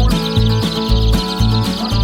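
Background music with a steady, heavy beat and bass line, over the constant high peeping of a box of baby chicks.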